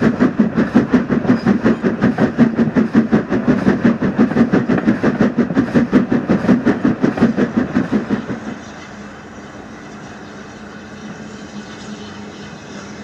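A steam train running at speed with a fast, even beat of about five a second. The beat stops suddenly about eight and a half seconds in, leaving a quieter steady noise.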